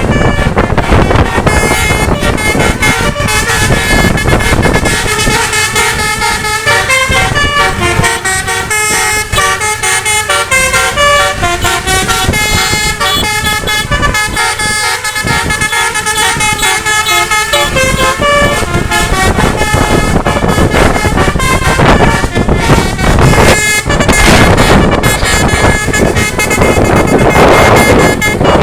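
Telolet musical bus horns playing stepping multi-note tunes over road and engine noise, the tunes clearest through the middle of the stretch.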